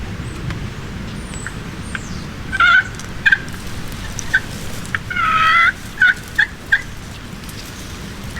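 Turkey calling: two short notes, then a longer gobble-like call about five seconds in, followed by three quick short notes.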